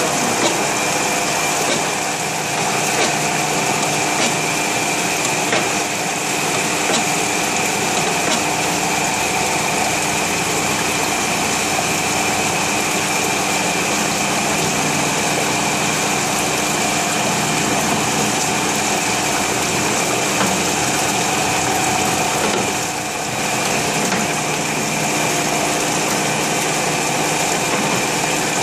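Ore slurry rushing and swirling as it pours from a spiral concentrator's chute into its round collecting tub, over a steady machine hum.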